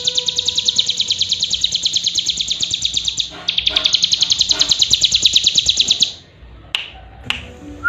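Hill prinia (cigun) singing: a long run of rapid, evenly repeated high chirps that breaks briefly after about three seconds, resumes, and stops about six seconds in. Two sharp taps follow near the end.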